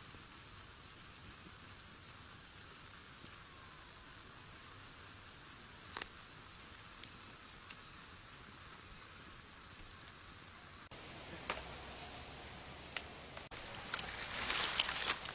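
Steady high-pitched drone of insects, with a brief drop about three seconds in. About eleven seconds in the drone stops abruptly and gives way to scattered clicks and rustling.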